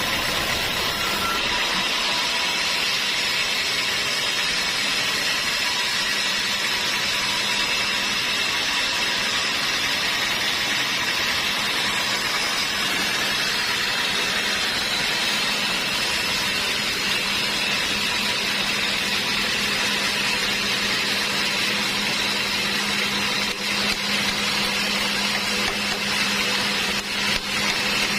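Sawmill machinery running steadily, a loud even noise with a faint low hum that strengthens after a few seconds.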